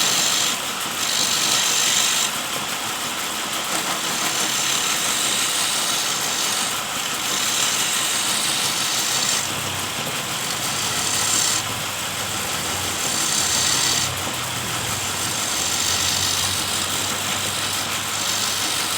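Homemade electric-motor wood lathe running, with a chisel cutting the spinning wood in spells of a second or two.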